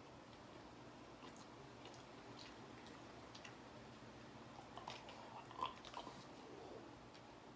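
Faint chewing of spicy snack noodles, with soft mouth clicks and smacks that come a little stronger about five to six seconds in.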